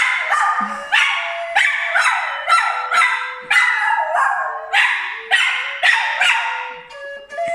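A dog barking and yipping in a fast, even run of about two sharp barks a second, with a thin held whining tone between them.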